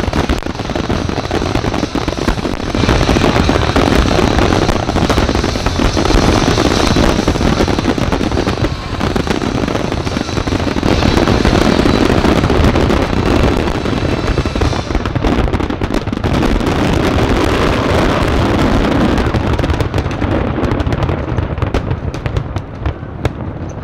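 Aerial fireworks display going off in a dense, continuous barrage of bursts and crackles, thinning slightly near the end.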